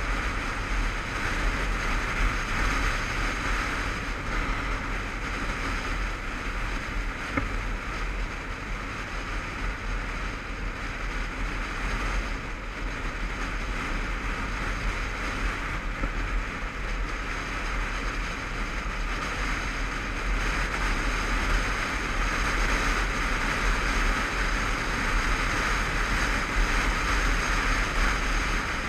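Steady rush of wind buffeting a helmet camera's microphone on a motorcycle riding at road speed, over a low engine and road rumble. The rush eases a little midway and grows again in the later part.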